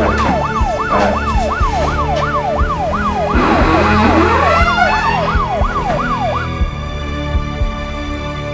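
Police siren yelping, its pitch rising and falling about three times a second, then cutting off suddenly about six seconds in. Low steady background music runs underneath and carries on after it.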